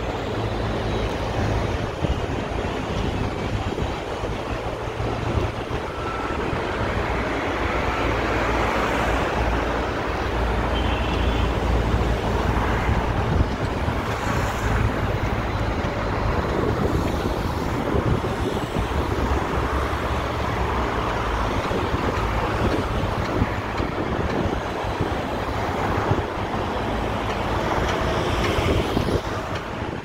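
Steady low rumble of road traffic and construction-site noise, with no single event standing out.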